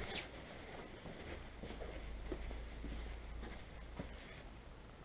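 Faint handling noise: light rustling and a couple of soft taps as a nitrous bottle is being set in place, over a low steady background rumble.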